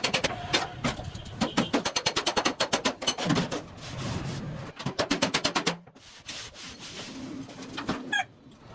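Hand sanding or filing on a vehicle body panel: quick back-and-forth rasping strokes, about six a second, in several runs. The strokes stop a little before six seconds in.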